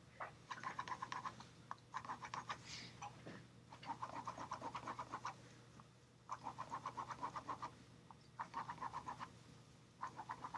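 Graphite pencil scratching on paper along a straight edge in quick back-and-forth strokes, laying in dark shading. The strokes come in about six short runs of a second or so each, with brief pauses between.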